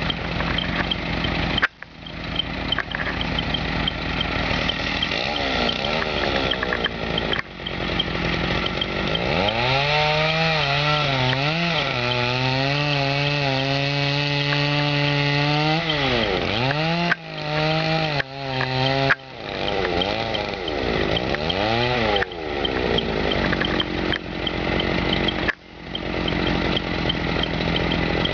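Two-stroke chainsaw cutting into a flooded gum trunk during felling, its engine pitch climbing and sagging as the chain bites and eases off. The sound drops out suddenly for a moment several times.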